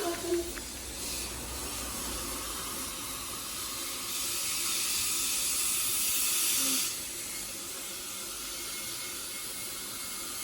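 Steady hiss, louder for about three seconds in the middle.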